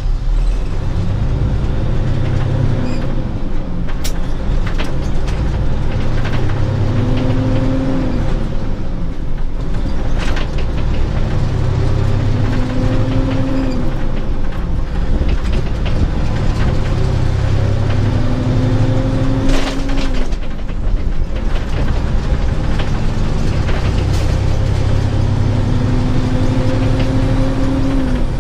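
Heavy truck's diesel engine pulling up through the gears of a 10-speed manual gearbox: its pitch climbs steadily in each gear, then drops at each upshift, about six times over, with a few sharp clicks between.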